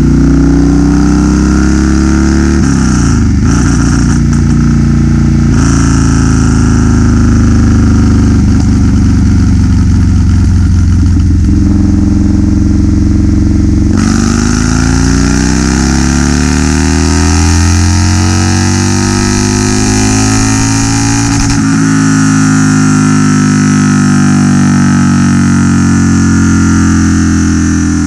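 Harley-Davidson 107 cubic inch Milwaukee-Eight V-twin, fitted with a bolt-in Red Shift 468 cam and a D&D Billet Cat exhaust, running loud on a chassis dyno. Its pitch steps a few times early on, then from about halfway the revs climb steadily through a long dyno pull before levelling off near the end.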